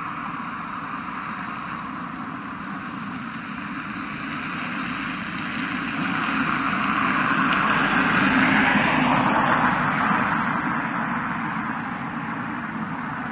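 Street traffic noise, with a vehicle passing close by: the sound swells to its loudest just past the middle and then fades away.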